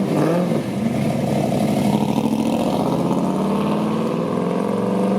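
C3 Corvette V8 engine running, its pitch wavering briefly near the start, then steady, climbing a little near the end. The owner suspects an exhaust leak at one of the manifolds.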